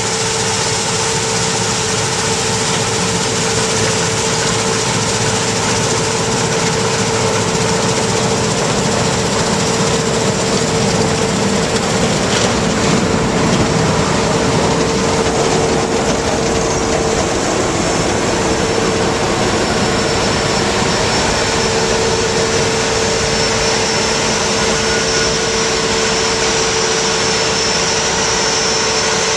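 Cat combine harvesting wheat, its engine and threshing machinery running steadily with a constant tone held on one pitch through the machine noise.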